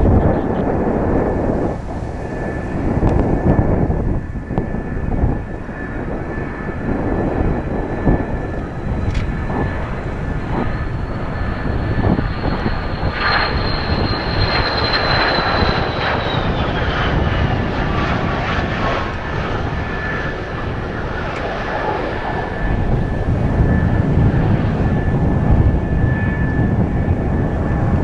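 Mitsubishi F-2 fighter's single F110 turbofan on landing approach, with a high jet whine that rises slightly, then slides down in pitch a little past halfway as the jet passes. Strong wind buffets the microphone throughout.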